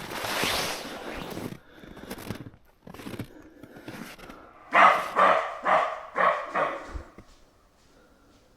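A wild animal barking in the woods: a quick run of five short barks, about two a second, growing weaker, after a brief rushing noise at the start.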